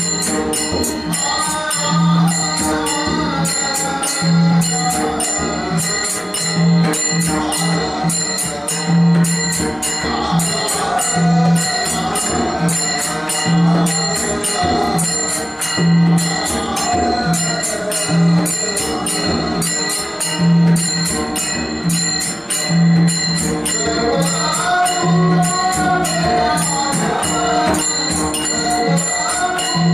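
Marathi devotional bhajan (abhang): group singing over quick, continuous clashing of brass taal hand cymbals and a pakhawaj barrel drum, with a deep drum stroke about every two seconds. The singing comes through strongest near the end.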